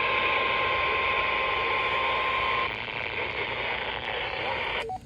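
Steady radio static hiss from a weather radio receiver, with a faint steady tone near 1 kHz that stops a little past halfway through.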